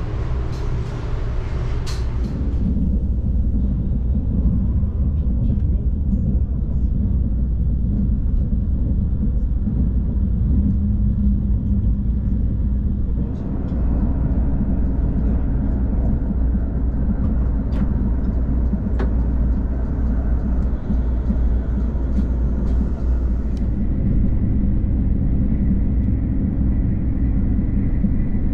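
SRT KTX-Sancheon high-speed train running at speed: a steady deep rumble with track and air noise. There is extra hiss over it for the first couple of seconds, and the noise shifts in character about 13 seconds in and again near the end.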